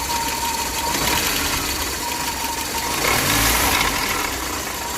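VAZ-21099's 1.5-litre 21083 engine idling slightly cold, with a knock and a grinding sound in its running whose cause the owner can't identify.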